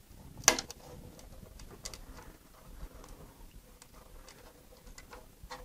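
Flush cutters snipping through a nylon zip tie, one sharp snap about half a second in, followed by a few faint clicks and rustles of hands working among the wires.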